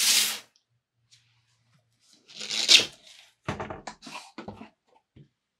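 Cardboard shipping box being handled: a brief scrape as it slides in, a louder rustling scrape about two and a half seconds in, then a quick run of light knocks and rubs as it is set down and turned.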